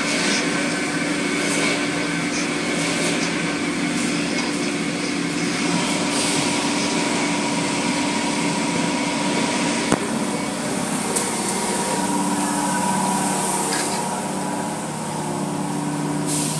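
Automatic car wash heard from inside the car: water spraying and sheeting over the car with the steady hum of the wash machinery. Two sharp knocks about ten and eleven seconds in.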